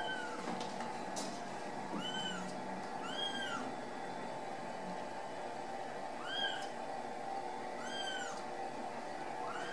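Ragdoll kitten mewing: about six short, high-pitched mews, each rising then falling in pitch, spaced one to two seconds apart.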